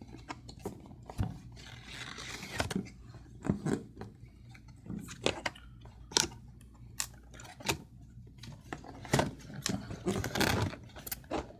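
Cardboard packaging being pulled open by hand: flaps and an inner box sliding and scraping, with irregular taps and rustles.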